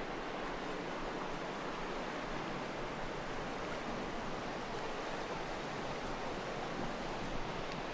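Steady, even rushing of sea surf.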